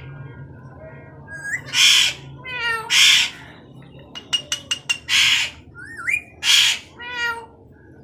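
Alexandrine parakeet calling: four loud, harsh squawks, with shorter pitched whistling calls between them and a quick run of about five sharp clicks midway.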